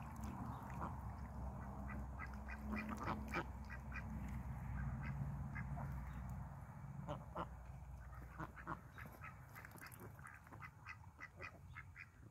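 Cayuga ducks dabbling and drinking at a plastic wading pool: rapid short clicks and splashes of bills in the water, with soft quacking.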